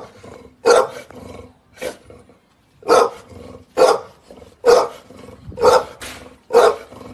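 A large bully-type dog barking repeatedly, about one short bark a second, with a few weaker ones between.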